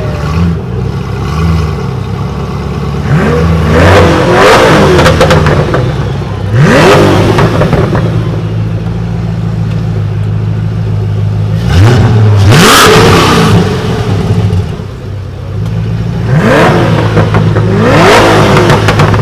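Supercar engine idling with a steady hum, blipped several times in sharp revs whose pitch sweeps up and falls back.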